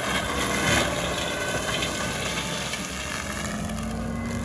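Case TV620B compact track loader's diesel engine running under load while its Loftness Battle Ax forestry mulcher drum spins at the ground, a steady dense rushing noise. The engine note rises slightly near the end.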